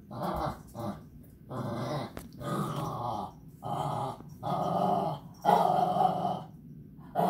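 Small dog growling in a string of short play growls, each under a second, while tugging on a rope toy held to a door by a suction cup; the growls get louder toward the end.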